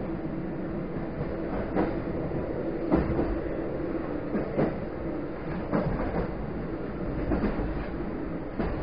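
EN57 electric multiple unit running along the line: a steady hum under the wheels' clickety-clack over rail joints, sharp knocks coming mostly in close pairs about every second and a half.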